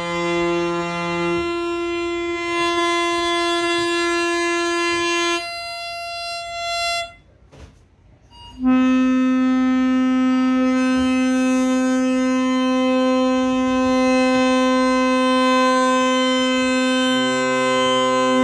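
Shruti box tuned to 432 Hz sounding sustained free-reed drones, several notes held together with the chord shifting a few times. About seven seconds in the sound nearly cuts out, then comes back louder on a new, lower drone.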